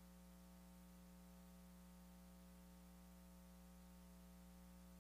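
Near silence: a faint steady hum with a light hiss, and nothing else.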